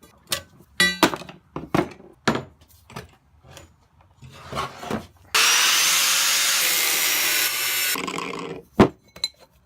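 Scattered knocks and clatters of pieces being handled, then about five seconds in a power tool cuts loudly and steadily for nearly three seconds and stops abruptly, cutting a steel piece to length.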